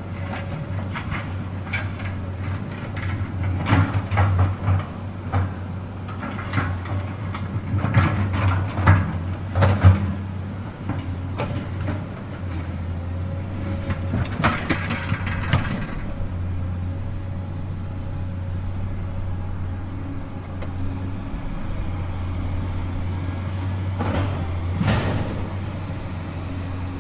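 Large truck's engine running at a steady low drone, with repeated metallic clanks and knocks from the truck at work. The knocks come thick and loud through the first half, the loudest about ten seconds in, then thin out to a steady run, with a few more near the end.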